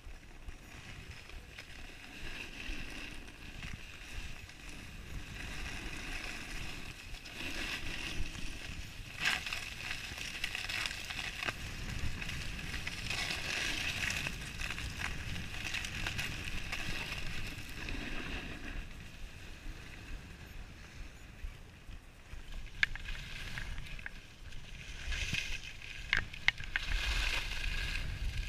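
Skis sliding over groomed snow, a steady scraping hiss that swells and fades with the turns, with a few sharp clicks near the end.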